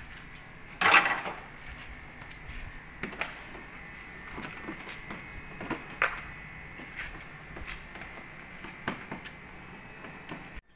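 Hand tools and car body parts being handled: scattered sharp clicks and knocks, with a louder clatter about a second in, over a faint steady high tone.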